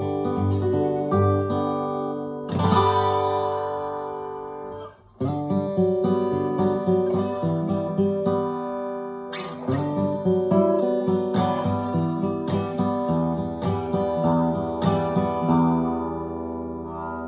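Alvarez Masterworks MD90 dreadnought acoustic guitar played solo: picked notes and strummed chords. About two and a half seconds in, a chord is left ringing and fading, then there is a brief break just before five seconds. After that the playing runs on as a steady stream of picked notes and chords.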